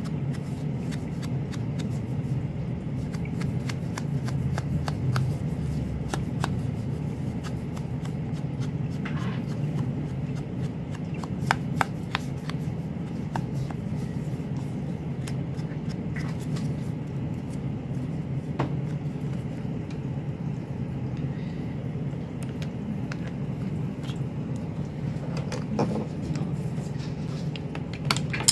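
Steady low background hum with scattered light taps, dabs and rubs as a foam mini ink blending tool works over card stock and the card is handled. A couple of sharper clicks stand out.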